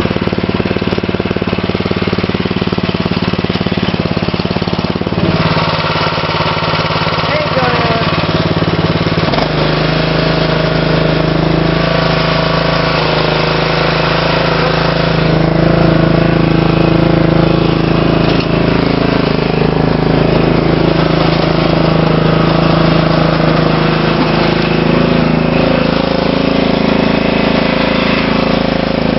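Craftsman lawn tractor's engine running steadily, its note changing about nine seconds in.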